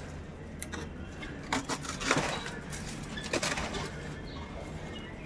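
Pigeons cooing, with scattered short rustles and light knocks, the loudest about two seconds in and again near three and a half seconds.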